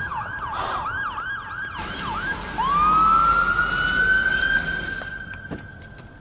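Police car siren on the yelp, quick rising-and-falling whoops about four a second. About two and a half seconds in it switches to one long rising wail, which holds steady and then fades toward the end.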